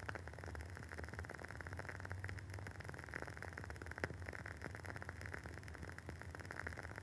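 Wooden wick of a Woodwick candle crackling as it burns: a rapid, steady patter of small soft pops, with one sharper pop about four seconds in.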